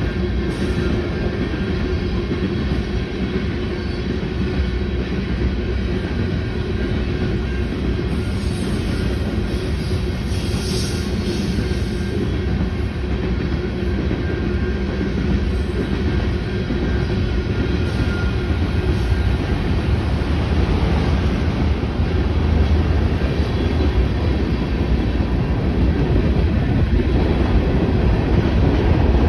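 CSX freight train cars rolling past, a steady rumble of steel wheels on the rails that grows a little louder in the second half.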